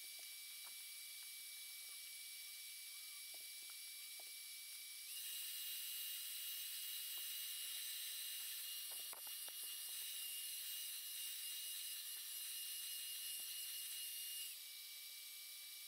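Hand-held hair dryer running, a steady faint hiss with a thin high whine. It gets louder and higher-pitched about five seconds in and drops back near the end, with a few faint clicks of handling.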